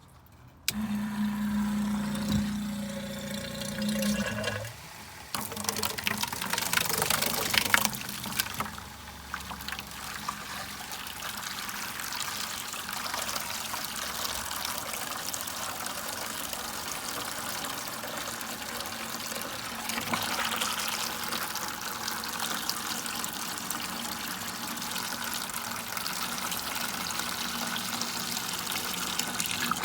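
A pump switches on about a second in with a steady hum, then water pours and splashes out steadily.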